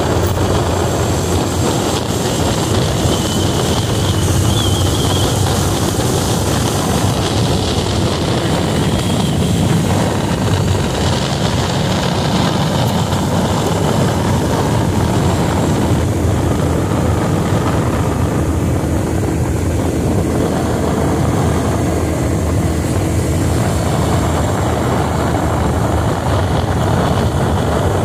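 Steady wind rush over an on-board camera microphone on a motorcycle riding at road speed, with the motorcycle's engine running underneath.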